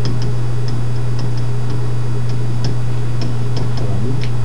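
A loud, steady low electrical hum, with irregular light clicks of a stylus tapping and writing on a tablet computer's screen.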